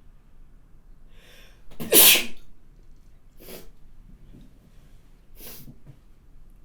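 A woman sneezing: a short inhale, then one loud, sudden, spraying sneeze about two seconds in, followed by two shorter, quieter bursts of breath.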